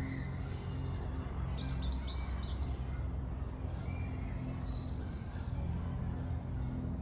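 Small birds chirping and trilling in short bursts over a steady low hum of road traffic.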